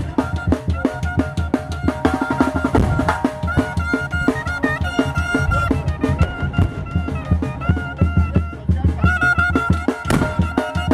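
Chirimía band playing: a high flute carries the melody over a fast, steady drum beat.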